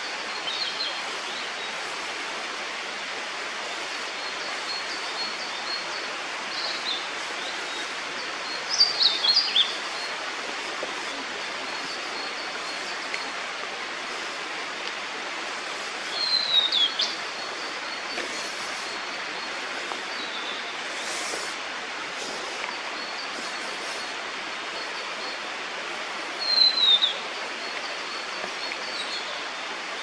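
Blue-and-white flycatcher singing at close range: three loud song phrases of sliding, falling whistled notes, roughly eight seconds apart, with fainter short notes between them, over a steady background hiss.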